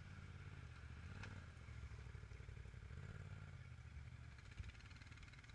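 Off-road vehicle engines, a quad bike and a side-by-side, running faintly at low revs, swelling slightly a couple of times. A single sharp click sounds about a second in.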